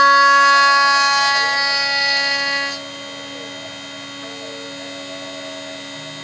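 DIY CNC milling machine running on aluminium, cut dry without coolant: a loud steady whine with many overtones that drops sharply to a quieter steady hum a little under three seconds in.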